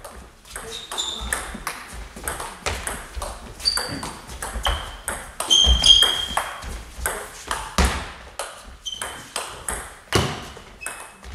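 Table tennis ball clicking back and forth off the bats and table in a long rally, several sharp clicks a second, with a few short high squeaks, typical of shoes on the hall floor.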